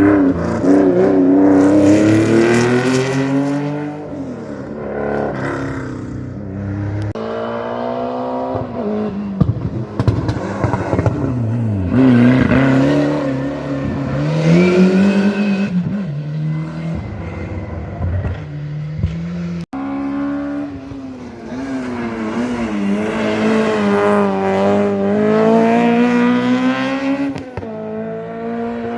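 Rally car engines running hard at full throttle, pitch climbing and dropping again and again through gear changes and lifts. About two-thirds through the sound breaks off sharply and another car's engine takes over, revving high and wavering.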